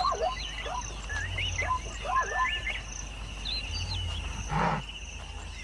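Natural wildlife ambience: birds calling in quick swooping whistles over a steady insect drone, with one short, rough breathy huff from a large animal about four and a half seconds in.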